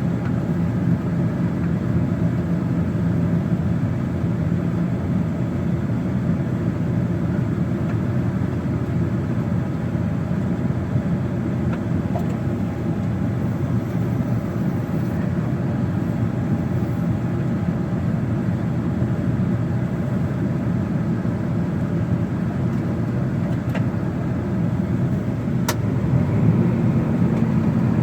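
John Deere 9600 combine harvester running with a steady low drone; its note steps up slightly near the end.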